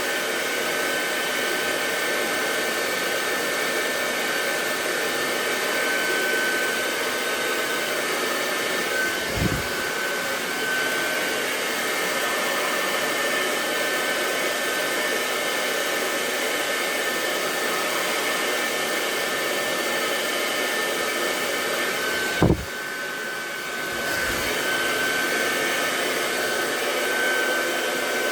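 Handheld hair dryer blowing steadily with a steady whine, during a blow-dry. Two knocks, about 9 and 22 seconds in. After the second one the airflow noise dips for about a second and a half, then comes back.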